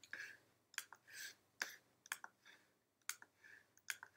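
Faint, sharp computer mouse clicks, about half a dozen spaced irregularly, as each click places an image into a frame in a page layout.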